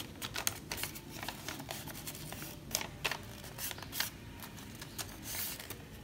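Sheet of notebook paper being folded and creased by hand: irregular light crinkles and rustles, a few sharper crackles among them.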